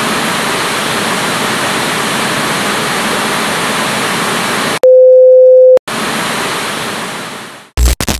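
Television static hiss, broken about five seconds in by a loud, steady beep lasting about a second, then static again that fades out, ending with a few short glitch bursts.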